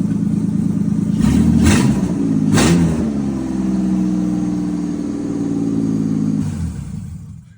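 Holden VY Commodore's freshly fitted replacement engine running with no exhaust system fitted, revved briefly with two sharp bangs about two and two and a half seconds in, then running steadily until it stops near the end.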